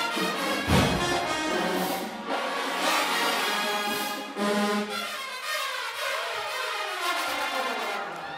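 Marching band brass section playing loud, with a drum hit about a second in. Near the end the horns slide down together in a long falling glissando.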